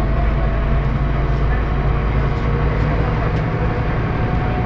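Scania OmniCity city bus running, heard from inside the passenger cabin: a steady low engine drone with a faint steady whine above it and a few light clicks.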